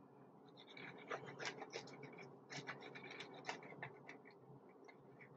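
Faint, irregular scraping and light clicking of a serving utensil against a dish, busiest through the middle few seconds.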